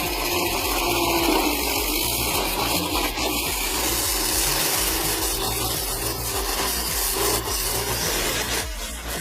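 Logging machinery at work: an engine running steadily under a continuous scraping, rubbing noise, easing slightly just before the end.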